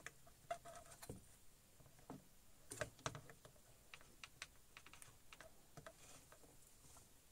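Faint, irregular light clicks and taps from handling a monitor's power-supply circuit board while its fuse is being removed, a little louder about three seconds in.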